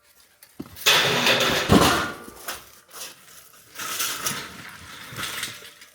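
Scrap metal offcuts being handled and tossed together: a burst of metal clatter about a second in with one heavy clank near its end, then scattered lighter clanks and scrapes.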